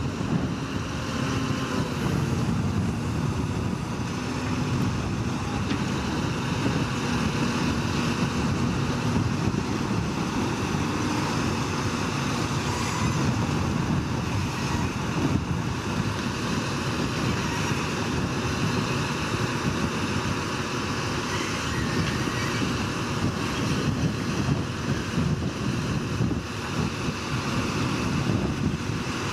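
Crane truck engines running steadily, with wind noise on the microphone.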